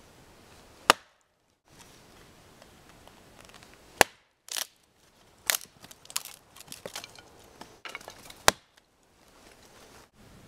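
Wetterlings large hunting axe splitting dead wood: three sharp strikes of the axe into the wood, with a run of smaller cracks and splintering as the piece splits apart between the second and third strikes.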